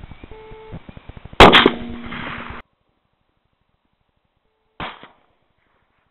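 A single shot from a Tikka T3 rifle in .223, a sharp crack about a second and a half in with a short ringing tail that cuts off suddenly. A much fainter short crack comes about three seconds later.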